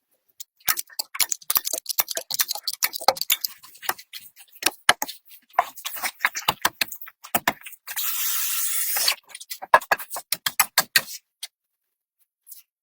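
A rapid, irregular run of clicks and knocks, with a steady hiss lasting about a second after the middle.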